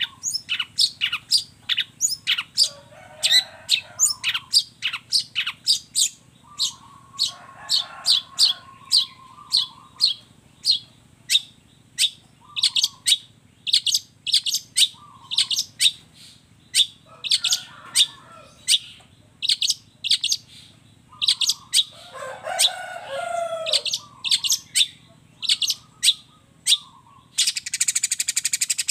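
Long-tailed shrike (cendet) singing: a fast series of sharp, high chirps, about two to three a second, broken now and then by lower warbled phrases, with a harsh buzzy rattle near the end. A faint steady low hum lies underneath.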